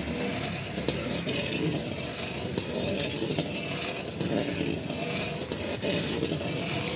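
Flat metal spatula stirring and scraping thick, reduced milk around an iron kadhai, mixing in citric acid, over a steady rushing background noise.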